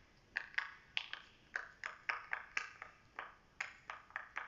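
Silicone pop-it fidget toy having its bubbles pressed one after another, each giving a short sharp pop, about four a second throughout.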